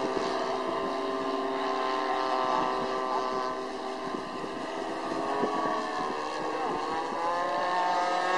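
Engines of model airplanes in flight, droning overhead, with the pitch rising toward the end.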